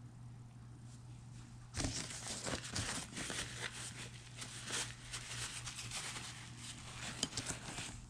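Rustling and crinkling of something being handled, starting about two seconds in and lasting about six seconds, with many small crackles. A steady low hum runs underneath.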